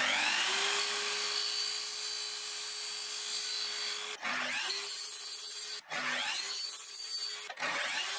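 Festool sliding mitre saw spinning up with a rising whine and running steadily as it cuts lengths of white plastic waste pipe. It stops abruptly and spins up again three times: about four, six and seven and a half seconds in.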